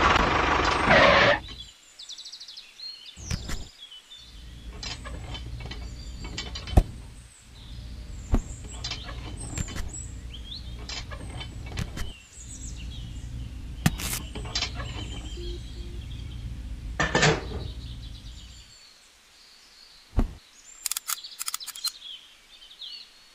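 Small clicks and knocks of a model tractor's hitch and a miniature harrow being fitted together, over a low steady hum that cuts in and out several times, with faint bird chirps behind.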